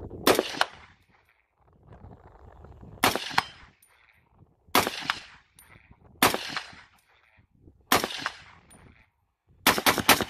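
Gunshots fired one at a time at a steady pace, roughly every second and a half, each followed by a short echoing tail. There is a quick pair of shots at the start and a quick string of three near the end.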